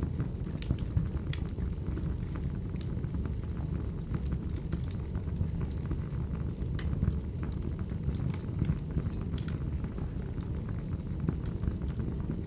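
Wood fire burning: a steady low rumble of flames with sharp crackles and pops scattered irregularly throughout.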